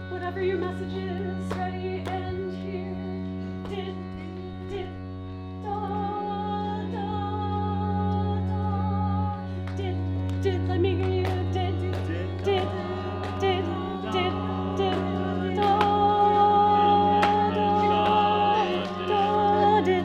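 A group of voices sings and hums short and long notes, Morse-code dits and das, over a steady low organ-like drone. The layered voices grow denser from about six seconds in and louder toward the end.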